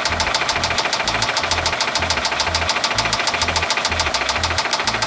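2009 Subaru Impreza 2.5i's SOHC EJ253 flat-four engine running with a steady, rapid, loud knock, most likely a spun bearing in one of the cylinders.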